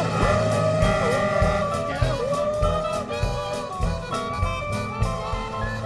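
Upbeat, jazzy background music: a sliding lead melody over a steady beat.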